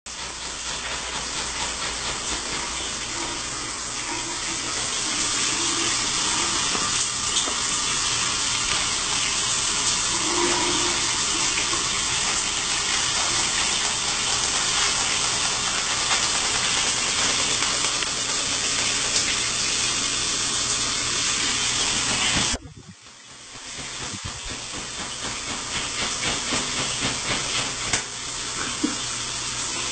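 Shower spray running, a steady loud hiss of water. It drops out abruptly about three-quarters of the way through, then builds back up.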